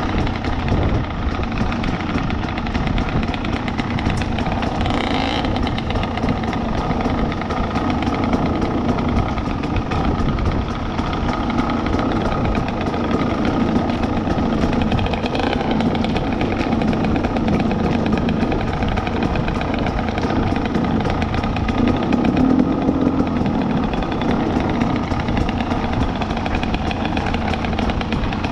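Two-stroke dirt bike engine running steadily.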